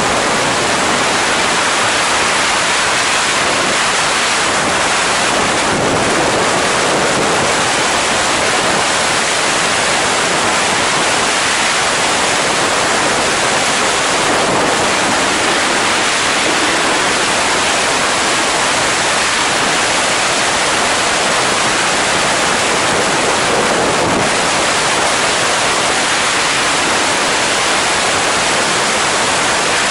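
Loud, steady rush of freefall wind blasting over a skydiving camera's microphone.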